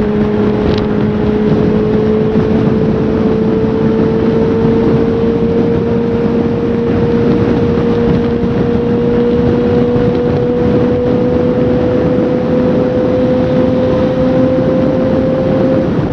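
Motorcycle engine running at highway speed, its note climbing slowly and steadily as the bike accelerates, under steady wind and road rush.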